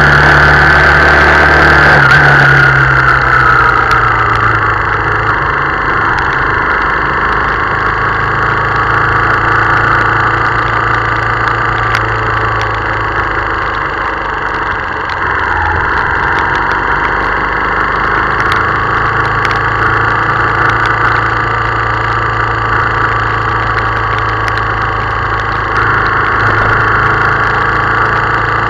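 Motorcycle engine running under way in a heavy downpour, with a steady rush of wind and rain noise over it. The engine pitch sinks a couple of seconds in, dips briefly about halfway through, and the whole sound gets a little louder near the end.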